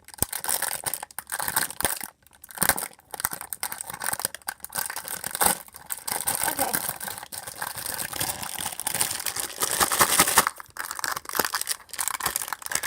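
Plastic packaging crinkling and rustling as it is handled, an irregular crackle with a few short pauses.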